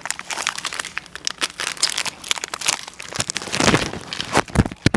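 Crinkling and rustling of Pocky snack packaging being handled and opened, a dense run of irregular crackles. A few heavy thumps come near the end.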